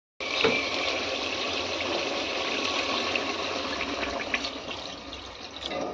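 Water poured in a steady stream into a pressure cooker of kofta and potato curry, splashing into the liquid to make the gravy. The pour tapers off near the end.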